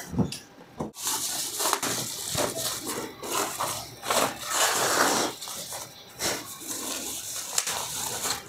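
Packaging being handled as a subwoofer is unpacked: irregular rustling and scraping of plastic wrap and foam packing, with scattered small knocks.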